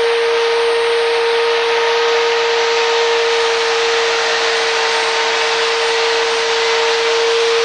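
A steady, unchanging hiss with a constant mid-pitched hum through it, like a motor or fan running.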